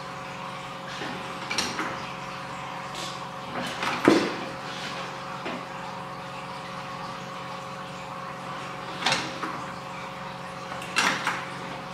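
Metal parts of a pad printing machine's open ink tray assembly knocking and clattering as they are handled and fitted by hand. There are four short knocks, the loudest about four seconds in, over a steady hum.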